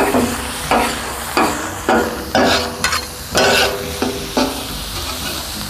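Two metal spatulas striking and scraping across a large flat tawa griddle, about two ringing clangs a second, over a steady sizzle of kabab masala frying with browning onion and tomato.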